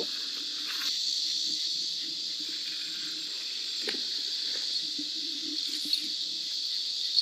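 Steady high-pitched chorus of crickets and other night insects, with a couple of soft knocks from handling the fishing gear, about four and six seconds in.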